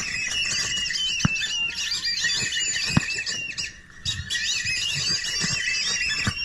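A dense chorus of many birds chirping and calling over one another, breaking off briefly about two-thirds of the way through and then resuming. A few sharp knocks sound over it, one near the start, one about a second in and one about three seconds in.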